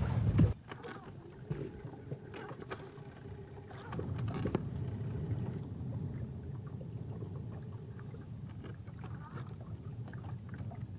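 A boat sitting on the lake, heard as a quiet, steady low rumble with a few faint knocks. A louder burst of noise at the very start drops away about half a second in.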